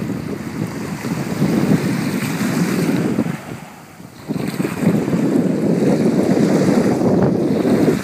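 Wind buffeting the microphone over the sound of surf on a beach. The gusting drops away briefly about three and a half seconds in, then picks up again.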